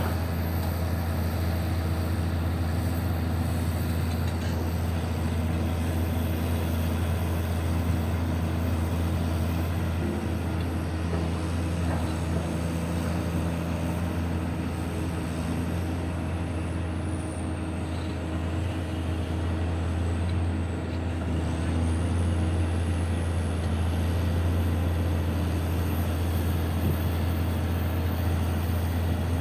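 Heavy diesel mining machinery running steadily with a deep, even engine drone. A faint high whine dips in pitch around the middle and then climbs back.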